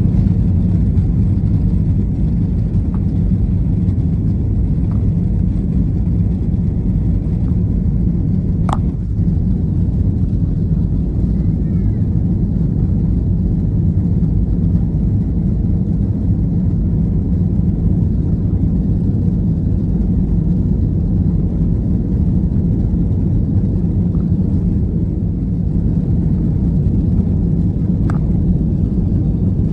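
Airbus A320neo cabin noise heard from a window seat during the takeoff run: a loud, steady low rumble of the engines and runway. A sharp click about nine seconds in and a fainter one near the end.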